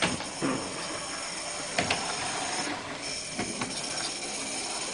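Live-steam Iver garden railway locomotive running, with a steady steam hiss and several sharp clicks and knocks through the run.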